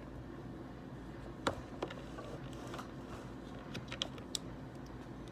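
Quiet room tone with a steady low hum and a handful of faint, scattered clicks, the sharpest about a second and a half in.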